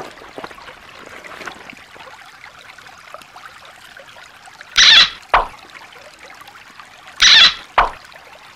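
Shallow water trickling steadily over rocks. Two short, loud noisy bursts stand out, one about halfway through and one about two and a half seconds later, each followed by a brief click.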